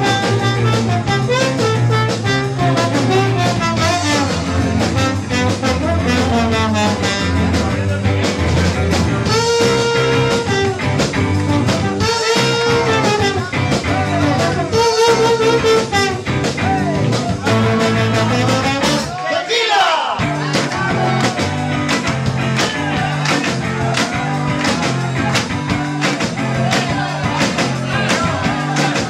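Live band playing a 1960s-style tune, with slide trombone over electric guitars and bass. About two-thirds of the way through there is a sweeping glide in pitch.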